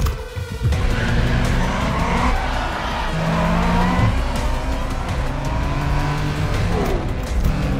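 Cars launching hard from a standing start: engines revving and tyres squealing and spinning, starting suddenly and staying loud, with music underneath.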